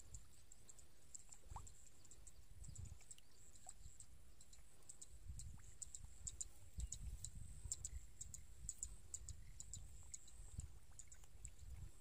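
Fish thrashing in a shallow muddy puddle: quiet wet clicks and patters, busiest in the middle of the stretch, over soft low rumbles.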